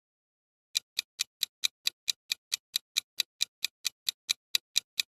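Countdown timer sound effect ticking: short, sharp, evenly spaced ticks, about four or five a second, starting just under a second in.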